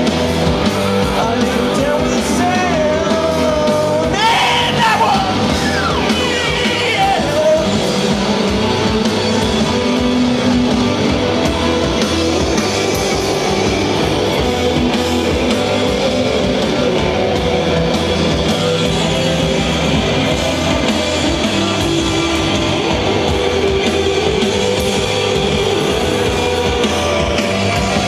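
Psychedelic rock band playing loud live: distorted electric guitars over a full band, with a singing voice.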